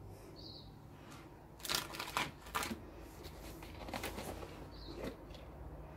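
Rattling, rustling and light knocks as cups and tools are picked up and moved about on a plastic-sheeted work table, busiest for about a second near the start and then a few scattered clicks.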